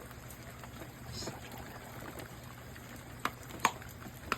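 Rain dripping: a soft steady hiss with a few separate sharp drips landing about three seconds in and near the end.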